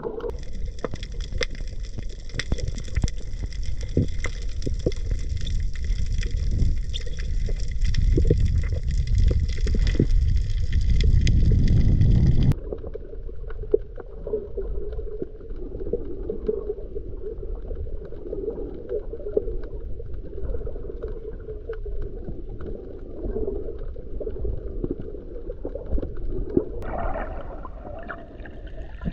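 Muffled underwater sound recorded while snorkeling: a dense low rumble of moving water with scattered faint clicks. About twelve seconds in the sound changes abruptly, losing its higher hiss and turning duller.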